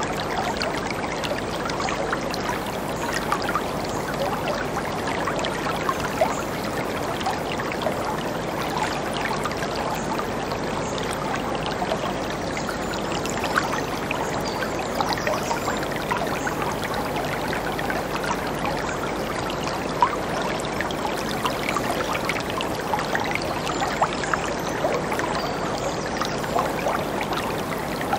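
River rapids rushing over rocks: a steady, dense wash of churning water with small splashes crackling through it.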